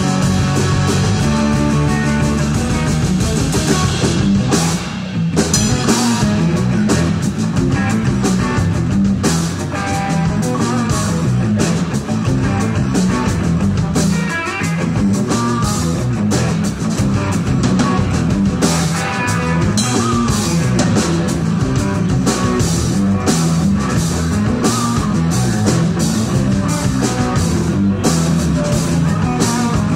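Live rock band of electric guitar, electric bass and drum kit playing together, the drums keeping a steady beat.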